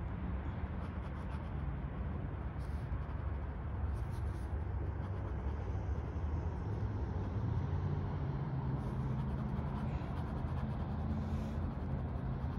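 Ink pen scratching on sketchbook paper in short shading strokes, over a steady low rumble.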